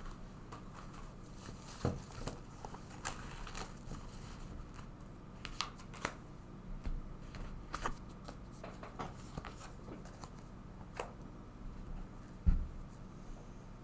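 Tarot cards being handled on a table: scattered light clicks and rustles of card stock, with one dull thump about twelve seconds in, the loudest sound.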